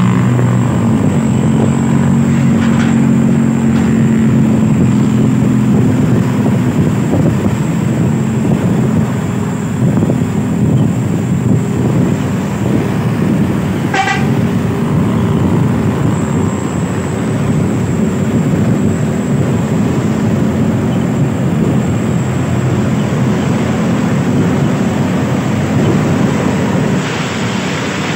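Intercity coaches running at speed in close traffic: loud, steady engine drone and road noise, with a brief sharp high chirp about halfway through.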